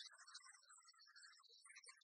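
Near silence with very faint background music.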